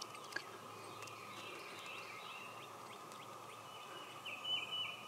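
Woodland ambience: a songbird sings short phrases of high notes, once in the middle and again near the end, over a steady background drone. A faint click sounds shortly after the start.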